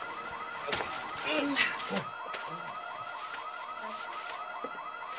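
Electronic alarm chirping rapidly and steadily, about six or seven short rising-and-falling chirps a second.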